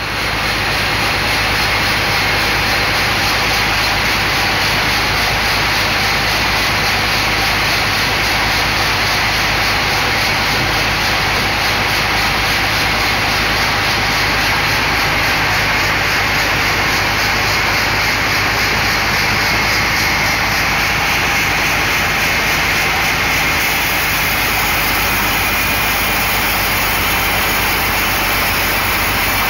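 Large log band sawmill running: a steady, loud, even machine noise with a low hum underneath.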